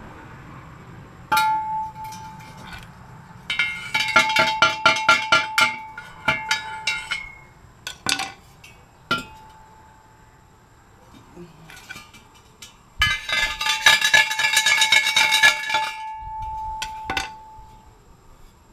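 Hollow steel catalytic converter shell clinking and ringing as it is knocked and shaken to empty out its gutted insides. There are two runs of quick rattling strikes, one about four seconds in and one near thirteen seconds, with single knocks between them.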